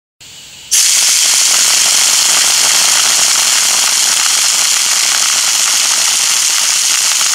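Homemade soda-bottle airsoft machine gun firing on full auto: a loud, steady rush of compressed air from the blow-gun nozzle, with a dense rapid crackle of BBs rattling through the bottle and out the barrel. It starts abruptly under a second in, after a brief faint hiss.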